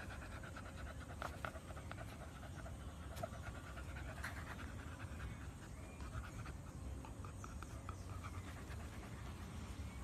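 Beagle puppy panting quickly and steadily, faint and close.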